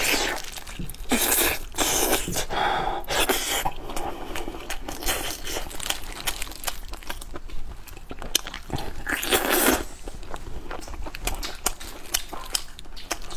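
Close-miked eating of a glazed roast chicken leg: biting into it and chewing, with crunching, tearing and clicking mouth sounds. There are longer bursts of biting about one to three seconds in and again about nine seconds in.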